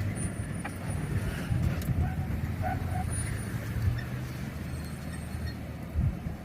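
Toyota Tundra pickup's engine running at low speed, a steady low rumble as it crawls down a rock ledge, with a couple of low thumps near the end.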